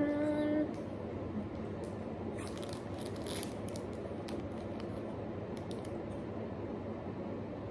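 A short hummed 'mm' that rises then holds, followed by crisp crunching and crinkling as apple slices are chewed and taken from their plastic snack bag, with a few scattered clicks and a steady background hiss.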